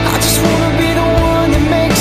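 Pop song playing as background music, in an instrumental stretch between sung lines: held chords with two sharp drum hits, one near the start and one at the end.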